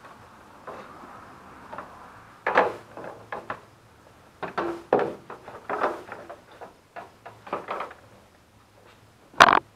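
Plastic cowl panel under a Ford Freestar's hood being handled and pressed down by hand: a series of irregular plastic knocks and rattles, with one sharp, loud knock near the end.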